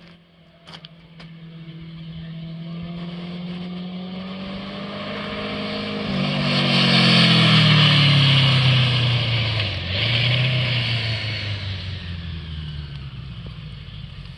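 1981 Honda GL1100 Gold Wing's flat-four engine, running on a single Solex 30 PICT-1 carburettor through a 3D-printed and PVC intake manifold, as the motorcycle rides by. The engine sound grows as it approaches, is loudest about seven seconds in, then drops in pitch and fades as it moves away.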